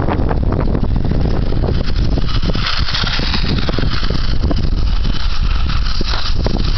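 Radio-controlled car driving and spinning on snow, its motor and tyres hissing under heavy wind buffeting on the microphone. The hiss swells twice, near the middle and near the end.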